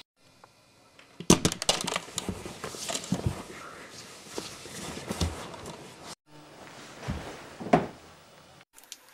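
Irregular knocks, clicks and rustling in two stretches, each cut off abruptly, with a single sharper knock near the end.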